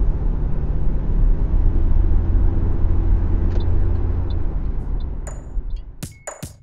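Steady low road and tyre rumble of a moving car heard from inside the cabin, fading out about five seconds in. Sharp electronic drum hits start near the end.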